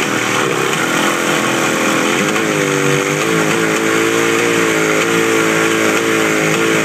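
1972 Johnson 25 hp two-stroke outboard running with its lower unit in a barrel of water. Its pitch climbs and wavers over the first three seconds, then holds steady. It won't reach full throttle, which the owner assumes could be the carburetor.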